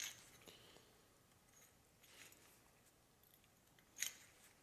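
Near silence with faint handling sounds of fingers working a Teflon seal onto a metal actuator piston: a few small clicks, the sharpest about four seconds in.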